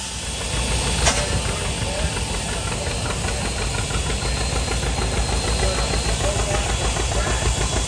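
An engine running with a fast, even chugging beat, with one sharp click about a second in.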